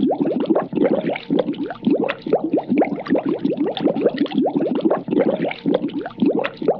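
Cartoon water-bubbles sound effect: a rapid, continuous stream of bubbling blips, each rising quickly in pitch.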